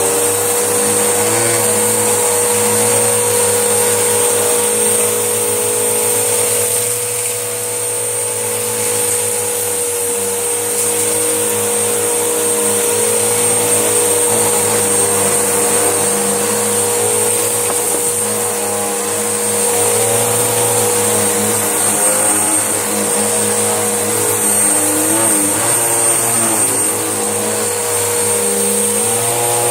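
Panasonic vacuum cleaner running steadily, having just spun up, with a high motor whine as it sucks up a pile of dog hair and dust. Its pitch dips briefly now and then as the load changes.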